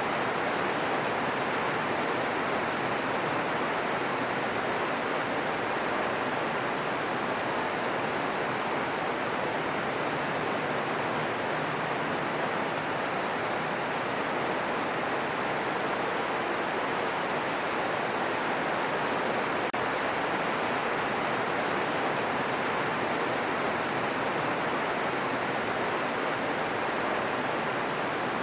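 Green noise: a steady, even hiss weighted toward the middle frequencies, with no changes or individual sounds in it.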